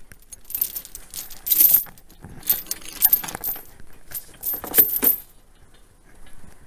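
Metal jangling and clanking in three bursts of clinks and rattles as a steel wheel boot is handled and pulled out of a vehicle's cargo area. The sound dies down about five seconds in.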